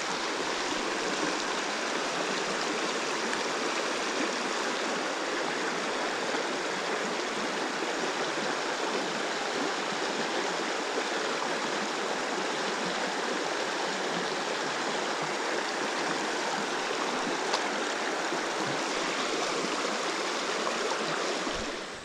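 Creek water flowing, a steady even rush that cuts off suddenly just before the end.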